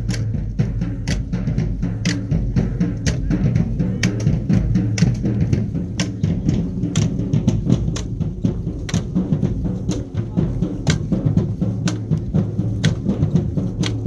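Marching band drumline playing a marching cadence on snare, tenor and bass drums, with sharp strikes on a steady beat about twice a second.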